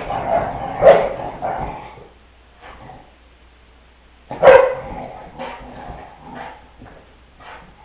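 Brittany dogs playing: a busy stretch of play noise in the first two seconds, then one loud, sharp bark about four and a half seconds in, followed by a few shorter, fainter yaps.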